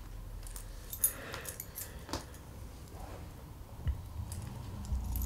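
A few faint, scattered light clicks and ticks over a low hum that grows louder near the end.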